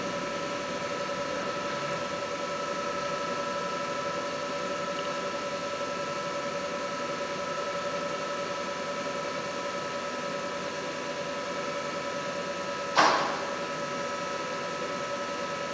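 Steady hum and whine of a robotic storage cell's machinery, with several constant tones over a hiss. About thirteen seconds in there is a single sharp plastic clunk as the robot arm sets a plastic kit box down on the carousel's top tier.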